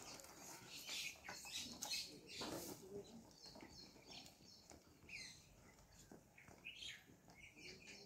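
Faint field ambience: scattered short bird chirps, one falling chirp about five seconds in, over soft rustling and light clicks.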